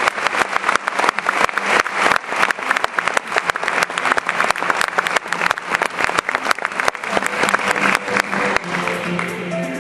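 Applause from the audience and the contestants on stage, dense clapping that thins out near the end as music starts to play.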